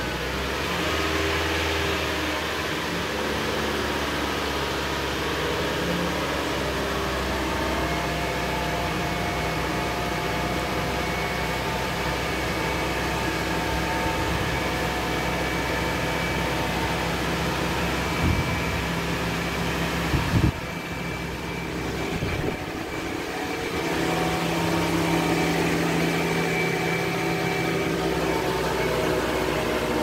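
Mitsubishi Lancer running in gear on a hoist with its front wheels spinning freely, a steady drone and whine from the engine, drivetrain and wheel hub that rises and falls with wheel speed, as a suspected worn front wheel bearing is checked. Two sharp knocks come about two-thirds through, after which the running briefly quietens before picking up again.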